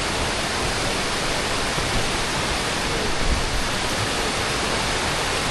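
Waterfall: the steady, loud rush of a large volume of falling water, unbroken throughout.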